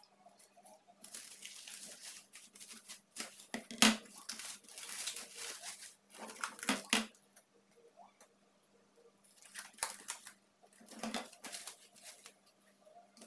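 Plastic cling film being pulled off its roll, torn and crinkled as it is wrapped around fish, in several rustling spells, with a sharp knock about four seconds in.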